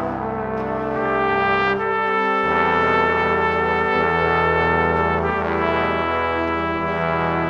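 Background music: slow, held brass-like chords that shift to new harmonies a few times.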